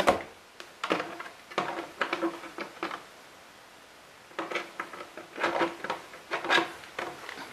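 Short plastic knocks and rustles in irregular bursts, pausing briefly near the middle: the RC monster truck's plastic body shell being handled and fitted onto the chassis.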